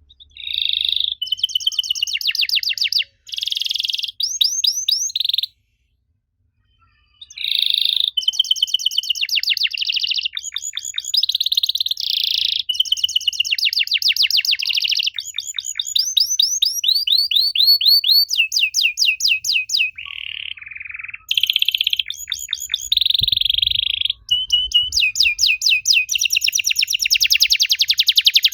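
Domestic canary singing: loud, high-pitched trills of rapidly repeated notes, switching to a new phrase every second or so, with one pause of about two seconds a few seconds in.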